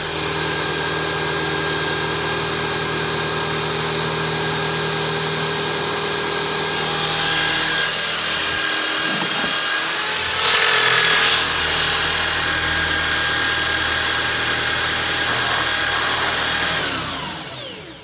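Electric drill, a 600-watt motor, spinning a Wolfcraft drill-driven transfer pump that is pumping diesel: a steady whirring drone that swells a little partway through, with a brief louder rushing noise around the middle. Near the end the drill winds down and stops.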